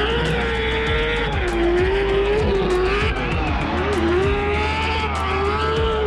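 Drift car's engine held at high revs, its pitch rising and falling with the throttle, while the rear tyres spin and squeal through a smoky slide.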